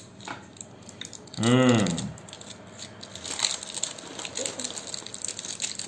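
Ceramic poker chips being unwrapped by hand: the plastic wrap crinkles and the chips give light clicks. About a second and a half in, a man's wordless voice sounds once, its pitch rising and then falling, and it is the loudest sound.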